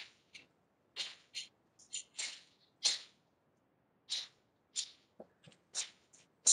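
Short sharp swishes from a karate kata being performed: the snap of the uniform and sharp exhales with each strike and block, about a dozen at irregular spacing.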